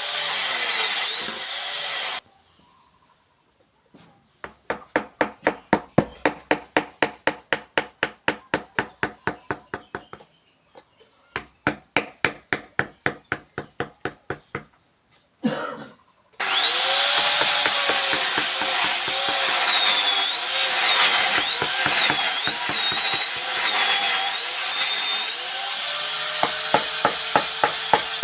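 A power carving tool on wood whines, its pitch dipping and rising as it bites and then cutting off. After a pause come two runs of steady tapping, about three strikes a second. The tool starts up again and runs on with a wavering whine to the end.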